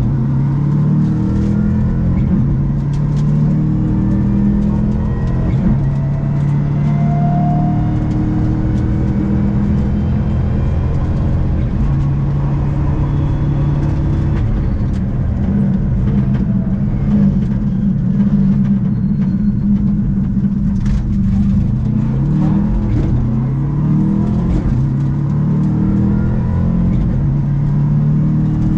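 Subaru rally car's flat-four engine at full throttle, heard from inside the cabin, revving up through the gears and dropping in pitch at each shift, again and again. There are a few sharp clicks along the way.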